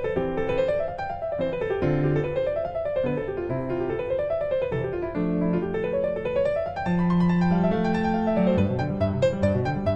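Background piano music: quick rising and falling runs of notes over held lower notes.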